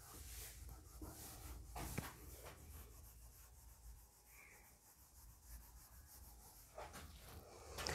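Faint rubbing of a whiteboard eraser wiped across a whiteboard in short strokes, with one light knock about two seconds in. The strokes fade to near silence in the middle and return faintly near the end.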